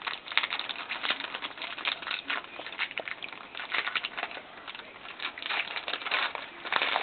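Trading card pack wrapper crinkling and tearing as it is opened by hand: a run of irregular crackles.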